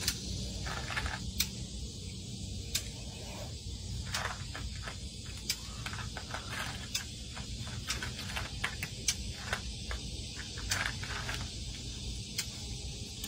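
Cat eating dry kibble: small irregular crunches and clicks, one or two a second, over a low steady rumble.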